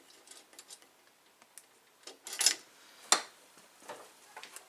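Light clicks and taps of small metal hardware being handled at a drum shell's rim. A brief scrape comes about two seconds in and a sharp tap about a second later.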